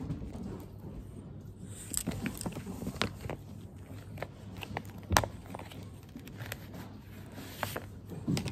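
Paper study cards being handled: scattered rustles, light clicks and taps, with one sharper knock about five seconds in.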